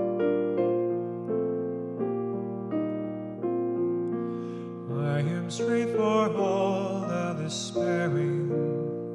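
Slow, gentle electric piano playing sustained chords, each note struck and fading. A singing voice joins it briefly from about five to eight seconds in.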